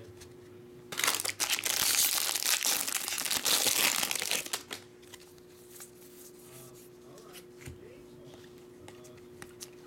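Foil wrapper of a 2020 Bowman Draft Jumbo baseball card pack being torn open and crinkled, loud for about three and a half seconds starting a second in. Afterwards come faint ticks of the cards being handled.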